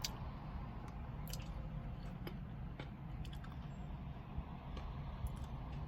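Close-up eating sounds from a caramel sundae with crushed almonds: chewing, with a scattering of small sharp clicks. A steady low hum lies underneath.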